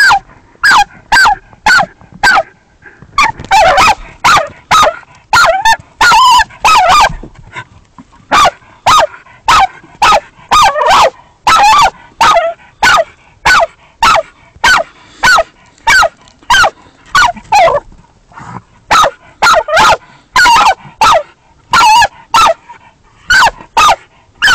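Earth dog barking at a badger in its den, a steady run of loud, sharp barks about two a second with a few short breaks, baying to hold the badger in place.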